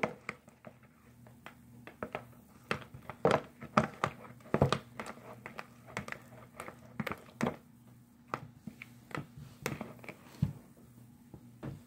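Spatula stirring and scraping sticky glue slime in a mixing bowl, giving irregular squelching clicks and taps.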